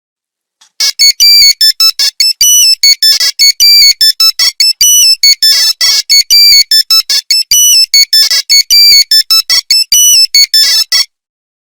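Nokia 3310 monophonic ringtone: a fast melody of short, clipped beeping notes that starts about a second in and stops abruptly shortly before the end.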